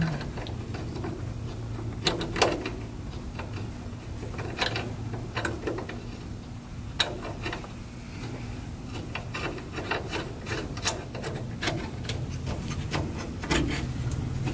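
Small metal clicks, taps and rubbing as a steel strut bracket and ball stud are handled and fitted by hand against a bus's sheet-steel bay door, scattered every second or two over a steady low hum.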